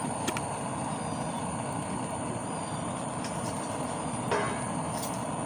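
Steady low rushing of a stove flame under a ladle of oil heating for tempering, with a light click just after the start and a brief clink about four seconds in.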